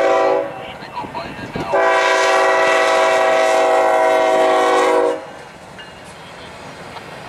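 BNSF GE diesel locomotive's multi-chime air horn: the end of a short blast, then a long blast of about three and a half seconds, the close of the grade-crossing signal. After the horn stops, the double-stack intermodal train rolls by with a steady rumble and wheel clatter.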